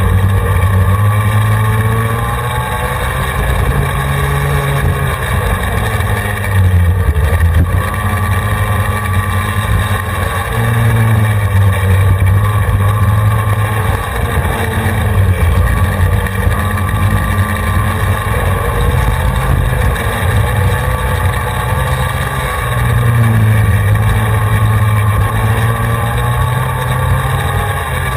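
Racing go-kart engine heard from on board at full throttle, its pitch climbing steadily along each straight and dropping off for each corner, several times over.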